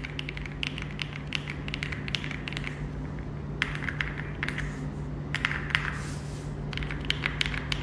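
Typing on an AULA F99 plastic mechanical keyboard with its stock Gray Wood linear switches: quick runs of key clacks with two short pauses.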